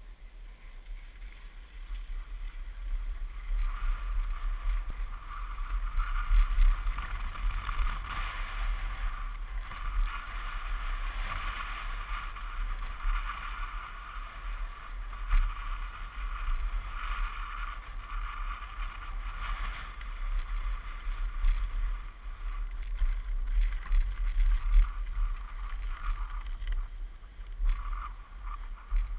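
Mountainboard wheels rolling over a rough track: a steady rolling noise that swells and fades, with scattered clicks and knocks, more of them near the end, over a constant low rumble.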